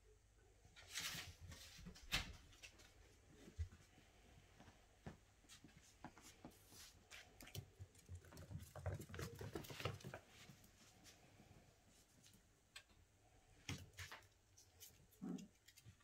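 Faint sounds of puppies play-wrestling: scattered light clicks and taps of paws and claws on a tile floor, and the rustle of blankets as they tumble about.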